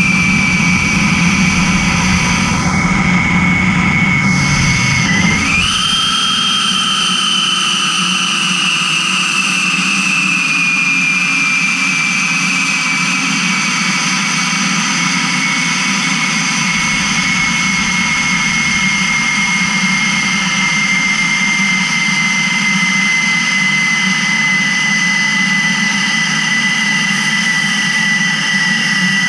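Superconducting MRI magnet's cryostat venting boiled-off liquid helium during a forced rapid warm-up (quench): a loud, steady rushing hiss with a high whistle that slowly falls in pitch. The whistle dips and jumps back up about five seconds in, and a low rumble underneath fades out at about the same time.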